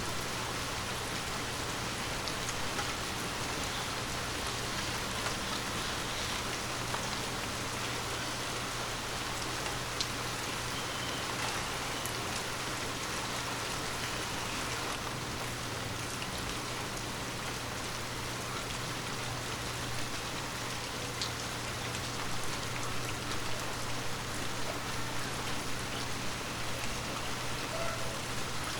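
Light rain falling steadily: a continuous hiss with scattered sharp drop taps.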